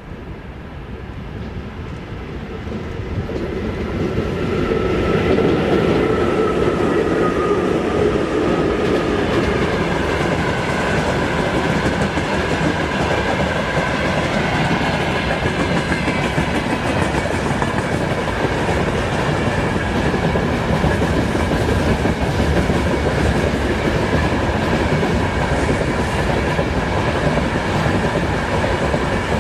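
A freight train hauled by a VL10U electric locomotive approaches. It grows louder over the first few seconds, with a whine that drops in pitch as the locomotive passes. Then the wagons roll by with a steady clickety-clack of wheels over the rail joints.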